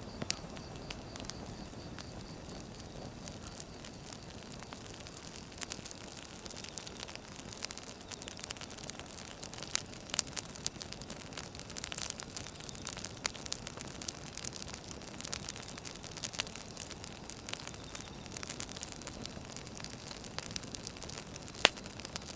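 Firewood burning: a steady hiss with frequent sharp crackles and pops, busiest through the middle, and one louder pop near the end.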